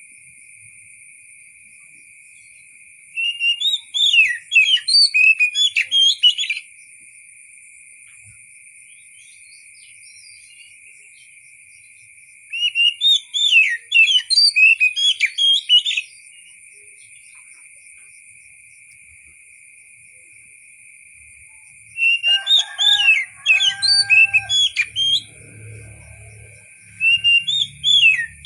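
Oriental magpie-robin (kacer) singing in bursts of quick, varied whistled phrases, each burst lasting three or four seconds with pauses of several seconds between them. A steady high-pitched whine runs underneath throughout.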